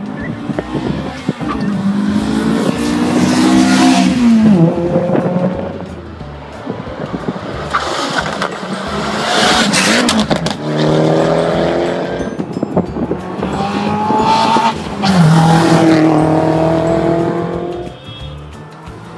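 Rally cars accelerating hard past at speed one after another, engines revving up and then dropping sharply in pitch as they shift gear and go by, several times over.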